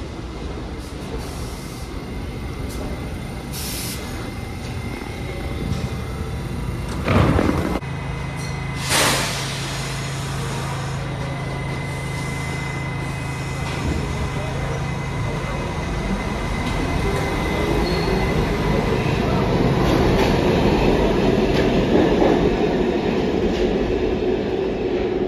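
New York City subway train: steady rumble with two sharp bangs about seven and nine seconds in, then the motors whine upward in pitch and grow louder as the train picks up speed in the second half.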